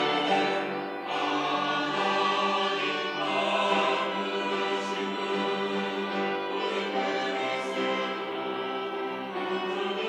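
Mixed church choir of men and women singing, holding long sustained chords.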